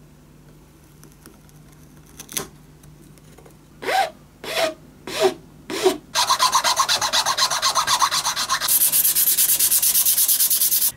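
Hand file rasping across the end of a wooden knife handle, first in a few separate slow strokes, then from about six seconds in fast, even back-and-forth strokes. A little before the end it turns brighter and hissier as sanding takes over to smooth the wood.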